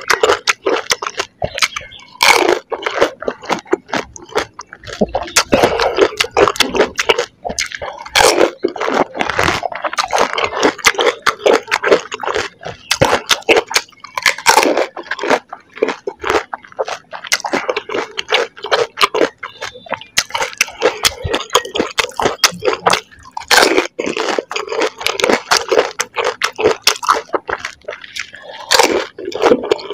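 Crunching and chewing of crisp golgappa (pani puri) shells eaten whole, close to the microphone, a dense run of crackly bites with louder crunches every second or so.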